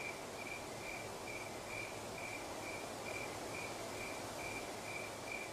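A cricket chirping steadily, a short high chirp repeated a little over twice a second, over a faint hiss of night ambience.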